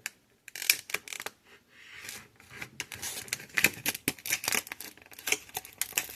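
Package-opener blade of a Gerber Dime multi-tool scraping and catching on plastic packaging: a run of short, irregular scratches and clicks, only scratching the plastic rather than cutting it.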